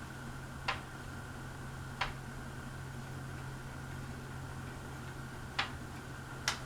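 52-inch Hampton Bay Quick Connect ceiling fan running: a steady motor hum with a faint steady whine above it, and four sharp ticks at uneven intervals.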